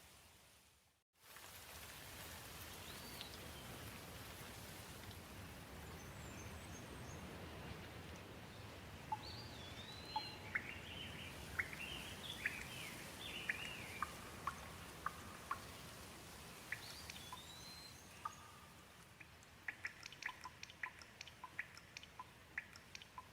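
Gentle rain falling as a steady hiss, with birds chirping over it through the middle, followed near the end by a quick run of sharp ticks. The sound cuts out briefly about a second in.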